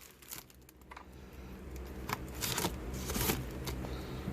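Cardboard and plastic packaging being cut and worked open with a small knife: scraping and rustling with a few sharp clicks, quiet for about the first second and then growing busier.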